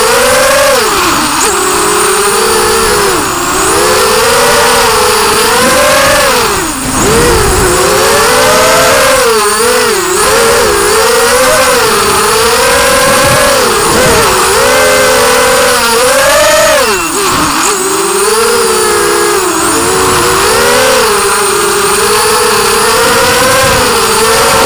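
Whine of a 5-inch FPV quadcopter's four 2204 brushless motors spinning 5x4.5 props, heard close up from the onboard camera. The pitch rises and falls constantly with the throttle, dipping briefly about seven seconds in and again around seventeen seconds.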